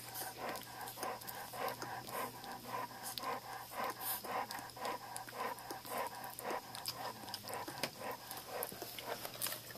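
A Bullmastiff mother panting steadily while her puppies nurse, at about two to three breaths a second.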